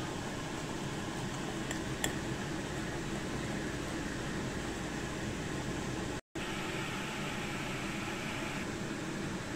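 Steady whirring background noise like a running fan, with a single sharp click about two seconds in. The sound cuts out completely for an instant just past six seconds.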